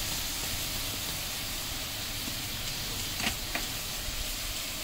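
Hot oil sizzling steadily in a large aluminium pot as ground spices are tipped in, with two light clicks about three seconds in.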